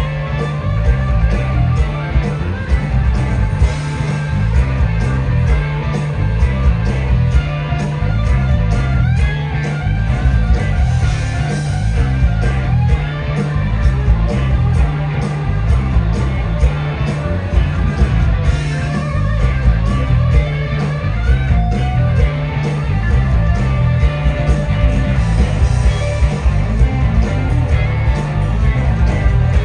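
Live blues-rock band playing loud: electric guitar, electric bass and drums with a steady driving beat, and the guitar taking lead lines with bent, wavering notes.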